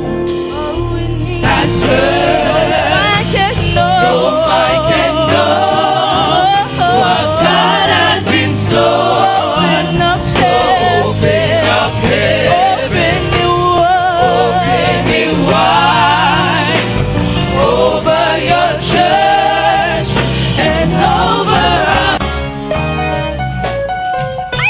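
Gospel music: sung vocals, with a choir sound, over a steady bass line.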